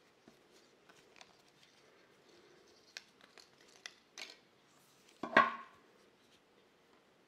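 Faint clicks and rubbing as a Casio G-Shock watch and its resin strap are turned and flexed in the hands, with a few sharper ticks, then one louder knock about five seconds in.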